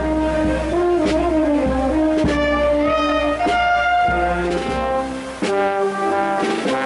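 Brass band playing a Holy Week processional march: held brass notes and chords, with a few sharp drum strokes and a low rumble under the first part.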